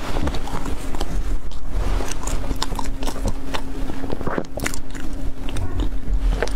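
Close-miked mouth sounds of biting into and chewing a soft wrapped food roll: wet smacks and irregular small crackles.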